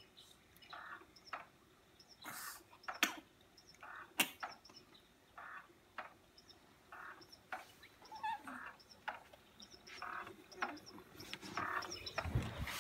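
Motorized baby cradle swing running, with a soft regular sound about once a second as it rocks, faint high chirps and a few sharp clicks. Near the end, a low rumble from the camera being handled.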